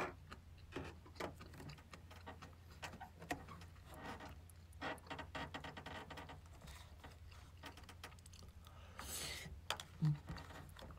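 Eating sounds: a spoon and chopsticks clicking and scraping against a plastic takeout rice bowl, with small mouth and chewing noises, over a steady low hum. A short hiss and a dull knock come near the end.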